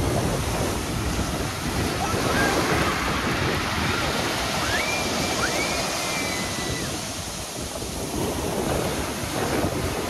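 Surf of a stormy sea breaking and washing up a pebble beach: a continuous rushing of waves.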